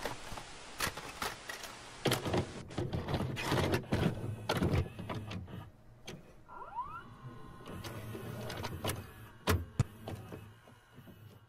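VCR taking in and loading a videocassette: a string of mechanical clicks and clunks over a low motor hum, a short rising whine partway through, and two sharp knocks near the end.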